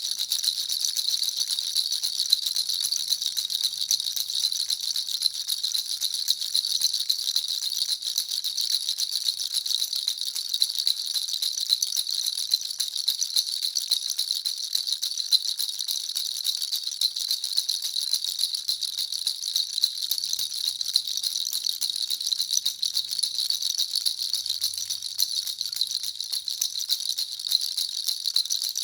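Baby rattle (jhunjhuna) shaken continuously: a dense, even stream of small, high-pitched rattling clicks that never pauses.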